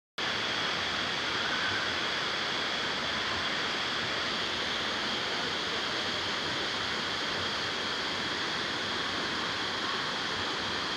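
Rushing canyon river water and waterfall, a steady, even rush of white water.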